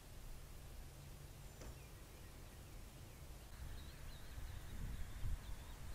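Faint outdoor ambience with a steady low rumble. From about halfway through, a bird sings repeated short chirps, and a few dull thumps come near the end.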